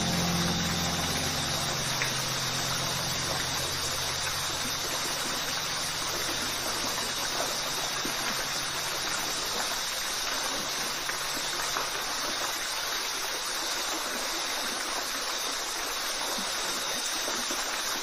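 Steady rushing water of a waterfall, an even hiss with no breaks. The low held notes of a music chord fade away under it during the first several seconds.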